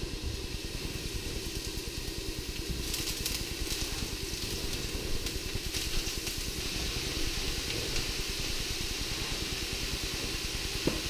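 Vegetables sizzling and crackling in oil in a very hot pan, over a steady low rumble.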